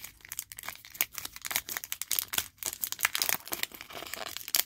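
Foil wrapper of a Garbage Pail Kids trading-card pack crinkling and tearing as hands peel it open: a rapid, irregular run of sharp crackles.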